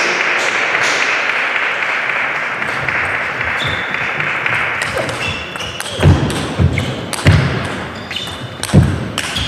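Table tennis rally: the celluloid ball clicks sharply off the bats and the table, several strikes with heavy low thuds, at irregular intervals of about half a second to a second. Before the rally there is a steady hiss for the first few seconds.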